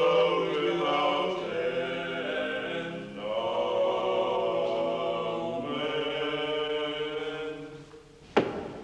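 Choir singing in several-part harmony: three long held chordal phrases that fade out near the end, followed by a single sharp click.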